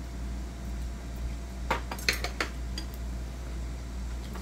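Chopsticks and spoons clinking against stainless steel bowls and plates during a meal, a few sharp clinks about halfway through, over a steady low hum.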